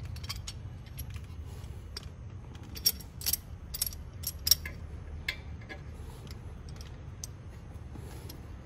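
Metal clicks and clinks from a C-clamp and an old brake pad being positioned over a brake caliper. Sharp ticks are scattered throughout, bunched together from about three to four and a half seconds in.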